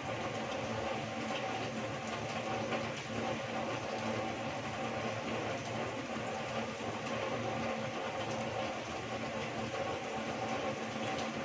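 Heavy rain pouring steadily, with water streaming off a roof edge, over a faint steady hum.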